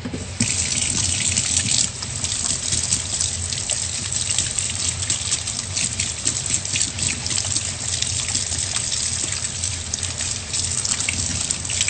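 Water tap running into a sink, splashing steadily as hands are washed under it; it starts about half a second in.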